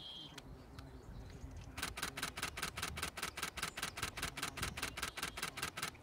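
Camera shutter firing in a continuous burst, a rapid even run of clicks at about five to six frames a second, starting about two seconds in and stopping just before the end.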